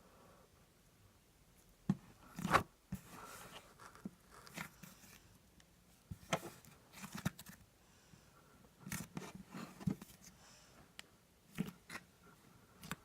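Butter slime being handled, squeezed and pressed by hand: sharp clicks and short sticky pops at irregular intervals, starting about two seconds in.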